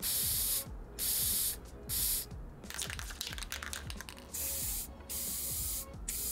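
Aerosol spray can of clear gloss glaze hissing in a series of short bursts, each under a second with brief gaps, as a protective topcoat goes onto painted resin figures.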